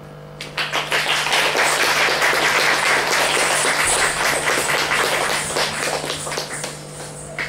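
Audience applauding: many hands clapping. It starts about half a second in and thins out near the end.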